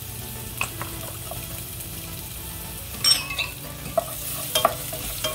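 Chopped garlic sizzling in hot oil in a nonstick pot, sautéing before it browns. From about three seconds in, a wooden spatula stirs it, scraping and tapping against the pan in a series of sharp clicks.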